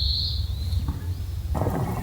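A bird gives one short high whistled note, over a steady low rumble. About a second and a half in, a dense crackling noise starts suddenly.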